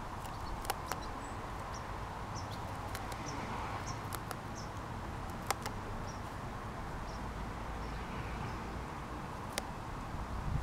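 Pet rabbit chewing lavender stems and grass close up: irregular crisp crunching clicks over a steady outdoor background, with faint, short bird chirps now and then.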